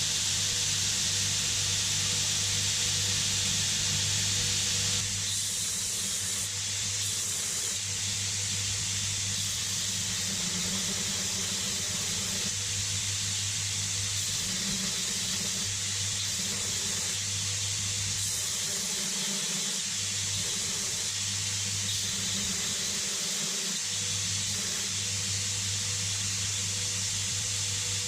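A steady hiss with a low hum underneath. The hiss drops a little about five seconds in, and the hum cuts out briefly twice near the last third.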